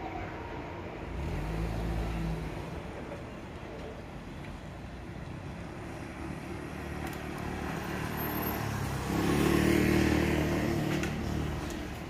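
Level-crossing warning bell ringing, then stopping about a second in as the crossing opens after a train. Cars then pull away across the crossing, and a louder vehicle passes close near the end.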